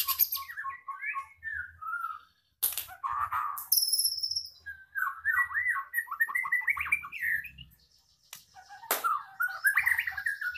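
White-rumped shama (a pied 'blorok' murai batu) singing in fast bursts: quick runs of sweeping notes and rattling trills, with high piping notes and short pauses between phrases. Two short harsh, noisy bursts come about three and nine seconds in. The bird is in moult, and its voice is not yet back to full form.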